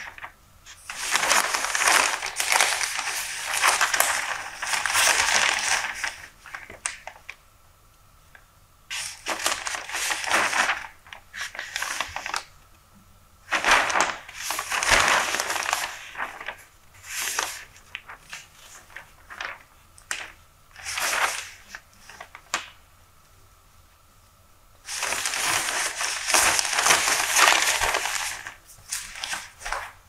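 Newspaper pages being turned and handled: crisp rustling and crinkling in bursts of several seconds, with quiet pauses between.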